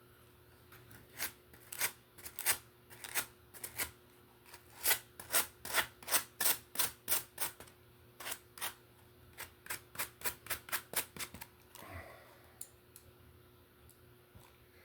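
Rusty part of a Roomba robot vacuum being sanded down by hand: quick back-and-forth scraping strokes, about three a second, in a few runs that stop near the end.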